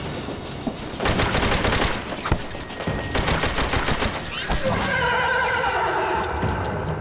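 Two bursts of rapid automatic gunfire, a fusillade of shots about a second long each, followed about five seconds in by a long wavering cry that falls in pitch.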